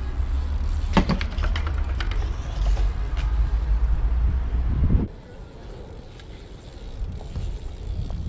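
A BMX bike ridden over paving, heard from close by: a steady low rumble with sharp clacks of the bike about a second in and a few lighter clicks after. The sound cuts off suddenly about five seconds in, leaving a quieter rustle.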